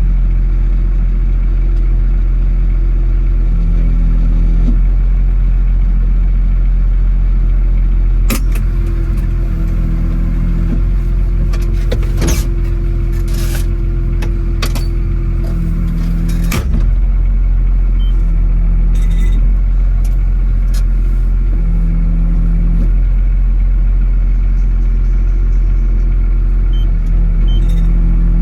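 Tractor engine running steadily at a constant speed, with a handful of sharp clicks or knocks in the middle.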